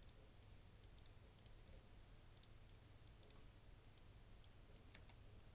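Near silence: faint, irregular clicks from a computer mouse and keyboard over a low steady hum.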